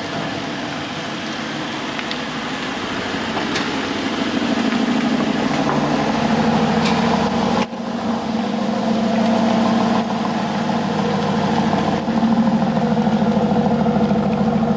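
Aston Martin DB11 being driven on a test run after a loose front suspension bolt was tightened. Its engine and road noise grow steadily louder as it gets under way.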